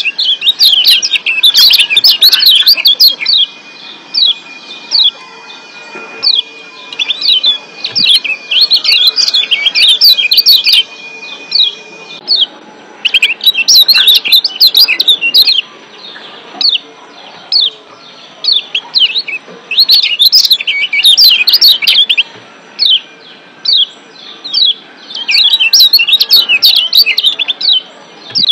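Lombok yellow white-eye (kecial kuning, a Zosterops) giving rapid, excited 'ciak' chirp calls in dense bursts of a few seconds, with scattered single chirps between the bursts.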